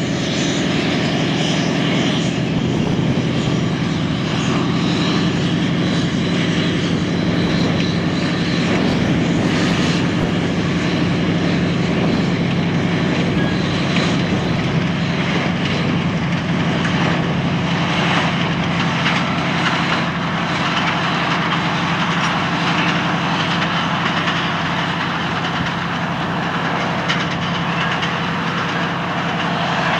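Lxd2 narrow-gauge diesel locomotive's engine running with a steady, even drone as it hauls a freight train of open wagons.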